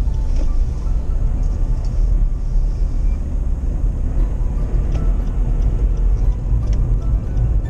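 Steady low rumble of a vehicle driving on the road, with faint music over it.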